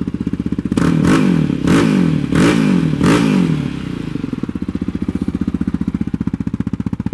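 Yamaha Raptor 700R's single-cylinder engine through a Yoshimura exhaust, idling, revved four times in quick succession about a second in, each rev rising and falling, then settling back to a steady idle. A light vibration from the bottom skid plate rides on the idle; a shim is meant to quiet it.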